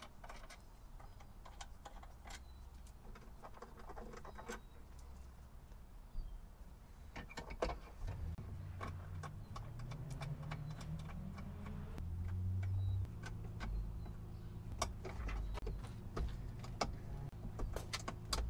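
Scattered light clicks and clinks of hand tools and parts as a module is bolted in and its connectors plugged in, over a low hum that gets louder about eight seconds in.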